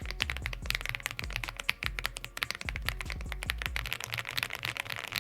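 Fast, continuous typing on an Aula F99 Pro mechanical keyboard, a dense stream of creamy-sounding keystrokes.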